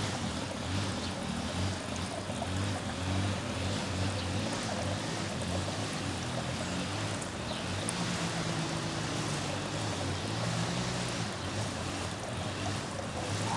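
Steady outdoor background rushing noise with a low rumble that swells and fades.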